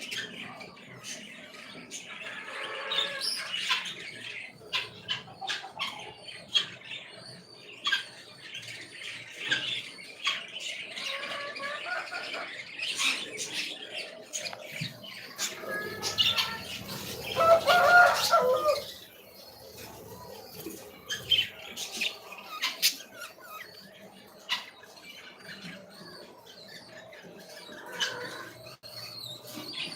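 Pet birds chirping and squawking, with scattered short clicks and flutters, and a louder harsh call lasting about a second and a half near the middle.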